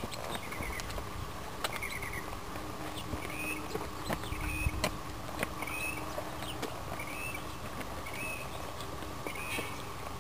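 A bird giving a short rising chirp over and over, about once a second, with scattered faint clicks and a faint steady hum behind it.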